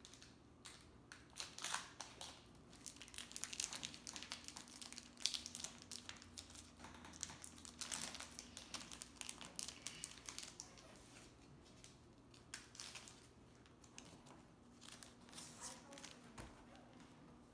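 Foil wrapper of a Pokémon card booster pack crinkling and tearing as it is opened by hand: an irregular run of rustles and sharp crackles, busiest in the first ten seconds and thinning out after that.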